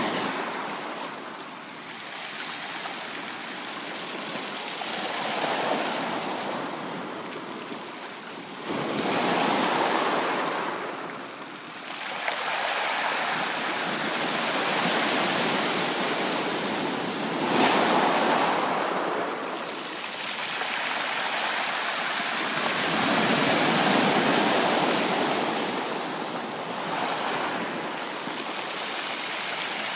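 Ocean waves breaking on a beach and washing back, each surge swelling and fading every four to six seconds.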